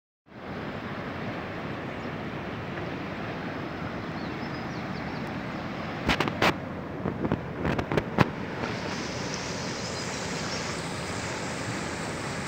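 Swollen, muddy river in flood rushing steadily over rocks, a constant rushing noise. Midway, a few seconds of sharp knocks and bumps come in louder than the water.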